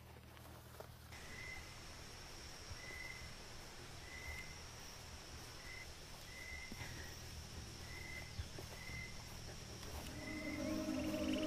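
Forest ambience: a steady high-pitched insect drone that starts about a second in, and a bird repeating a short note about once a second. Music comes in near the end.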